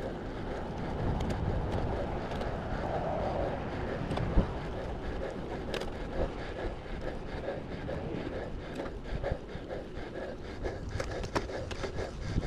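Road bike rolling along an asphalt trail: steady tyre noise on the pavement and wind buffeting the microphone, with scattered small clicks and rattles.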